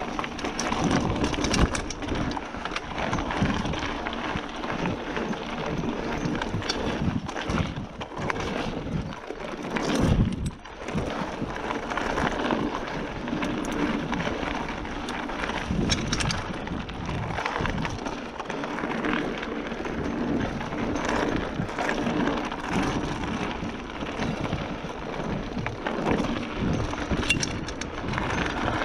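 Giant Fathom 1 29er hardtail mountain bike descending a rough trail: tyres rolling over stones and the bike rattling and clattering with every bump, with a heavier thump about ten seconds in.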